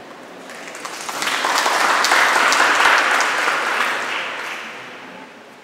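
Audience applauding. The clapping builds about a second in, peaks in the middle and dies away near the end.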